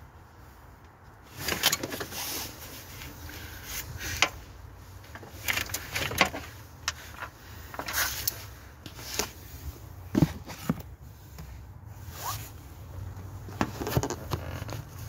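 Scattered clicks, light knocks and short scrapes of hands and tools working in a car's engine bay, irregular and unrhythmic, with a sharper knock about ten seconds in.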